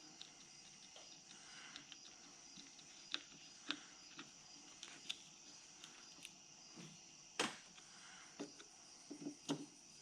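Crickets chirping steadily, with scattered light clicks and knocks from hand work on the pressure washer's cover and screws; the sharpest click comes about three-quarters of the way through.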